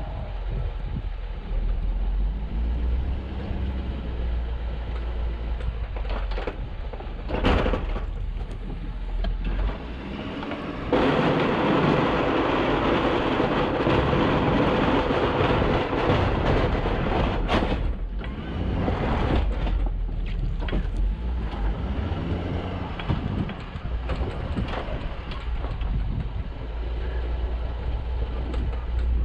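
Snow-plow truck engine running with a steady low rumble while plowing. About a third of the way in, a louder rush of noise lasts roughly six seconds before dropping back.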